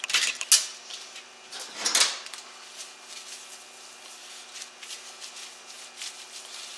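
Metal transmission parts being handled as the valve body's separator plate comes off: a few knocks and clinks, the loudest near the start and about two seconds in, then light scattered clicks over a faint steady hum.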